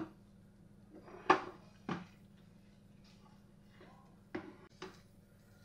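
A spatula knocking and scraping against a nonstick frying pan while stirring thick semolina kesari: four short clatters, the loudest about a second in, with quiet stirring between.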